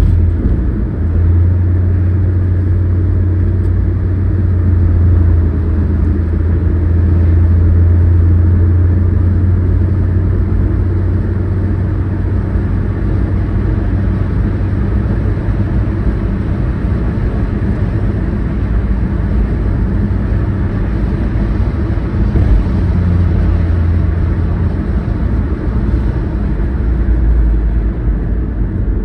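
Car driving on a city road, heard from inside the cabin: a steady low drone of engine and tyre noise.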